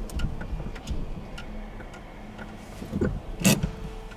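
Toyota AE86 with its engine off being rocked back and forth by an inspection-line plate shaker: irregular clicks and rattles from the car's body and trim over a low rumble, with one louder knock about three and a half seconds in.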